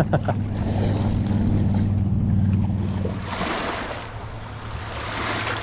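A steady low motor hum for about three seconds, then a rushing hiss of wind or water noise.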